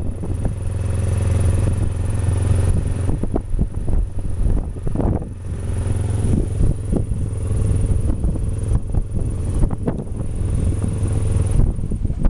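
Kawasaki ER-5's parallel-twin engine running steadily at low revs, with irregular knocks and rattles over it.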